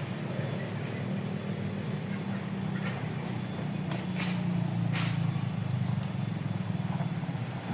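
A small engine running steadily at an even, low pitch, with a few short sharp clicks over it.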